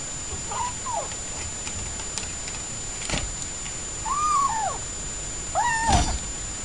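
Orange tabby kitten meowing three times: a short call just after the start, then two louder, higher meows near the end, with a sharp knock about three seconds in and another under the last meow.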